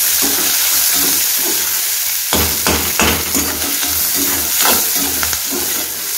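Onions, green chillies and curry leaves sizzling in hot oil in a metal kadai while a perforated metal ladle stirs them, scraping and knocking against the pan about once a second.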